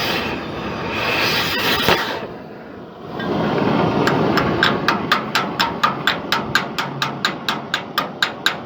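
Rapid, evenly spaced sharp knocks, about four a second, like hammer blows, starting about four seconds in over a steady background noise.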